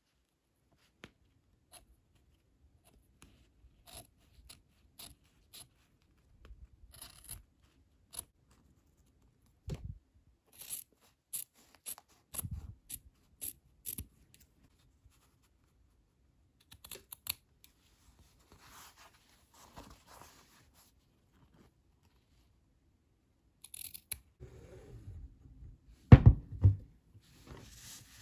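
Scissors snipping through fabric: a run of short, crisp snips, coming thickest about halfway through, with soft rustling of the cloth between them. Near the end a few louder thumps of handling are the loudest sounds.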